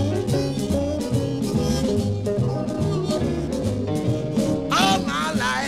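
Live electric blues band playing: a walking bass line under steady drums and guitar or piano, with a loud wavering high part near the end.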